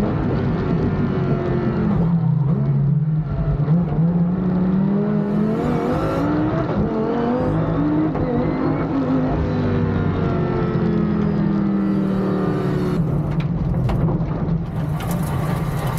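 Twin-turbo V10 engine of a 1500 hp Audi R8 time-attack car at speed on track. Its pitch climbs and drops repeatedly as it revs up and shifts. Several sharp cracks come near the end.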